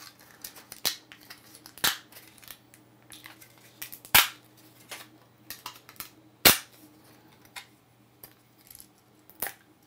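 3D-printed Z-ULTRAT plastic support structure snapping and cracking as it is broken away from a printed wand piece: irregular sharp cracks, the two loudest about four seconds in and about six and a half seconds in.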